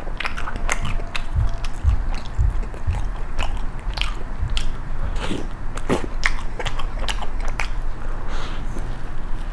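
Close-miked chewing of crisp toast: irregular crunchy clicks several times a second over soft wet mouth sounds.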